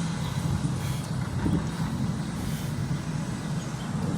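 Steady low hum of a car's engine and road noise heard from inside the moving car's cabin.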